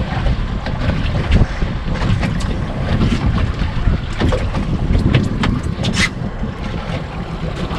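Wind rumbling on the microphone aboard a small fishing boat at sea, with water slapping the hull and scattered sharp clicks and knocks.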